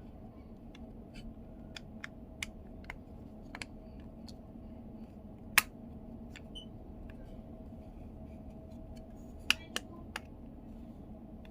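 Scattered sharp clicks and taps of small parts of a car's multimedia control knob being handled during disassembly. There is one louder click a little past halfway and a quick run of three near the end, over a steady low hum.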